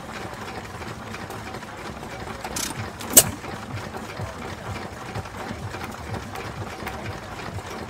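Vintage single-cylinder air-cooled stationary engine with large spoked flywheels running, with an even low beat of firing strokes. A single sharp click stands out about three seconds in.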